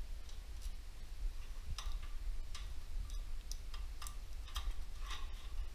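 Light, sharp metallic clicks and ticks from hand tools working on the old Gravely flathead engine, irregularly spaced about a dozen times, over a low steady hum.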